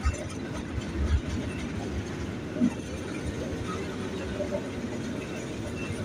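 Coal train cars rolling past: a steady rumble of steel wheels on the rails, with a few louder clunks from the wheels and cars.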